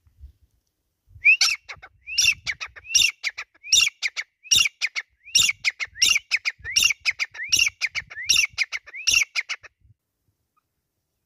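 Grey francolin calling: a loud repeated series of about eleven ringing phrases, each a rising note followed by short clipped notes, about one phrase every 0.8 seconds, starting about a second in.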